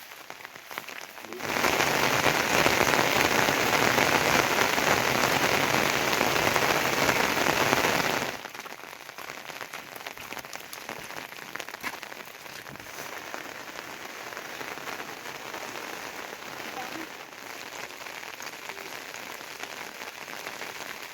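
Steady rainfall. It is much heavier and louder from about a second and a half in, then drops off suddenly about eight seconds in to a lighter, even patter of drops.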